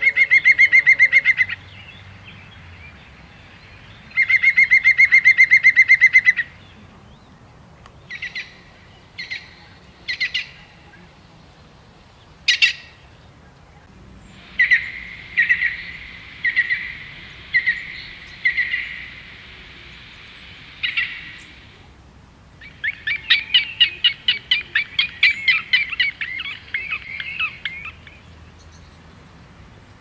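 Songbirds calling and singing: two rapid trills near the start, a few separate short notes, then a run of repeated notes and a fast twittering song near the end.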